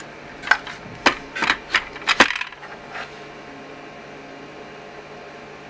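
Small plastic DIP switches on an infrared beam sensor being flicked with a small tool: a quick series of about five sharp clicks within two seconds, as the sensor's response-time setting is changed.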